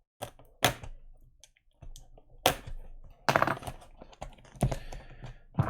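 Hands working open a cardboard trading-card box: a string of sharp clicks and taps with short scraping rustles between them.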